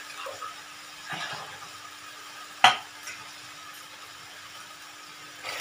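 Pot of besan-and-curd kadhi heating on the stove with a faint steady hiss and a low hum. About halfway through, one sharp clink, the loudest sound, like a utensil knocking against the pot.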